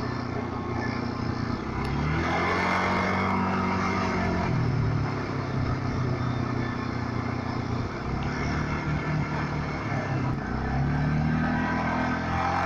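Quad bike (ATV) engine running while riding, heard from the handlebars: its pitch rises as it accelerates about two seconds in, drops back around four and a half seconds, and climbs again near the end.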